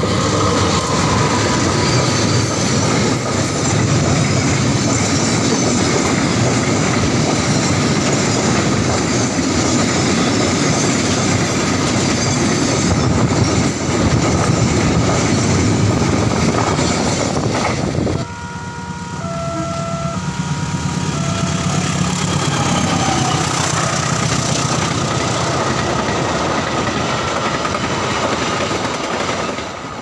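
A diesel-hauled freight train of Pertamina tank wagons rolling past very close, a loud continuous rumble with wheels clattering over the rail joints. About two-thirds of the way in it gives way abruptly to a quieter passing train, over which short steady warning tones sound on and off.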